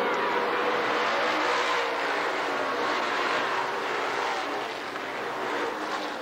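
Race-car engines running on a short oval track, a steady dense engine noise that gets somewhat quieter over the last second or two.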